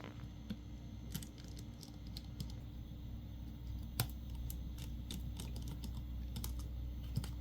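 Scattered light clicks and taps of small tools and phone parts being handled during smartphone reassembly, with one sharper tap about four seconds in.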